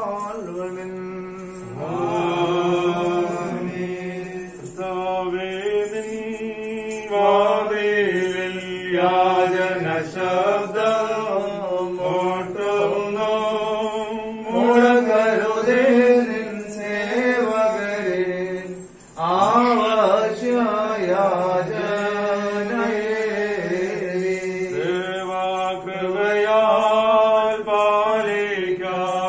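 Voices singing a slow devotional Christian hymn in phrases, over a steady held accompaniment tone.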